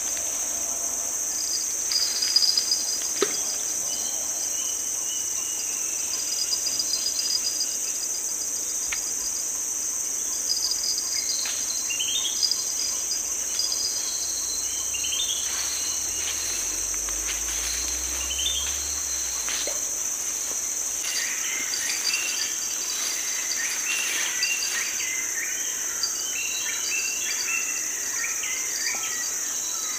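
Steady, high-pitched insect chorus with scattered bird chirps, which grow busier for a few seconds past the middle.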